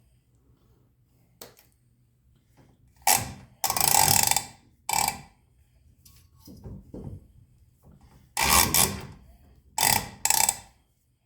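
Hand socket ratchet clicking in several short runs with pauses between, as bolts are run in and tightened.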